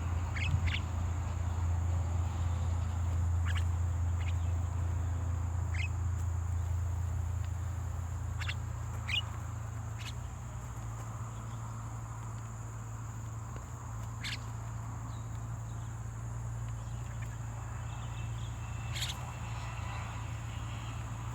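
Outdoor field ambience: scattered short bird chirps over a steady high-pitched insect drone and a steady low rumble.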